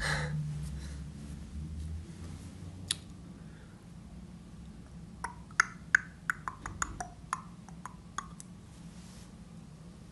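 Tongue clicks and mouth pops at differing pitches: one pop about three seconds in, then a quick run of about a dozen between about five and eight and a half seconds in, over a faint low hum.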